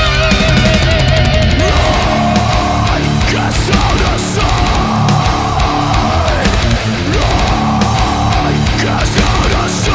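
Heavy metal music with distorted electric guitar and a steady drum beat.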